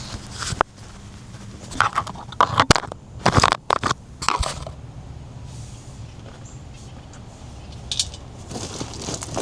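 Hard objects being handled and knocked together: a burst of clatters and scrapes from about two to four and a half seconds in, then a single click near the end.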